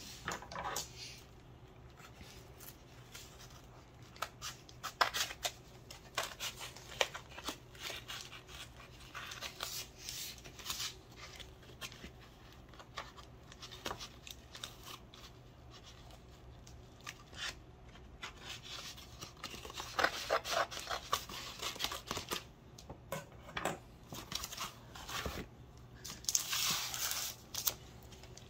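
Packaging being opened by hand: intermittent cutting, tearing and crinkling, with scattered clicks and handling knocks.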